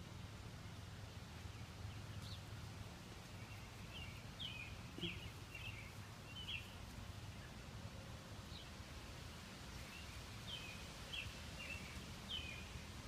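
A bird chirping faintly: two runs of about five short, high chirps several seconds apart, over a low steady hum.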